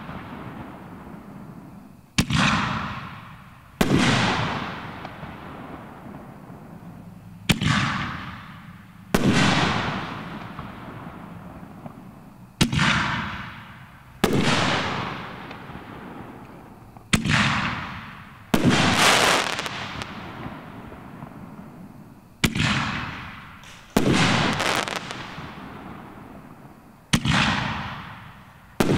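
Max-load canister-shell firework cake firing its aerial shells one at a time. There are six pairs of sharp bangs about five seconds apart: a launch, then the shell's loud break about a second and a half later, ringing out and fading over a second or two.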